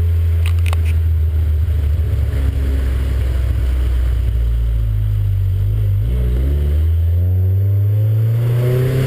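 Car engine pulling under acceleration, its pitch rising, dropping sharply at an upshift about six seconds in, then rising again.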